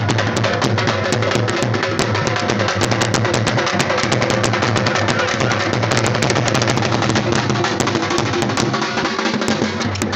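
Loud dance music driven by fast dhol drumming, with rapid strikes packed close together.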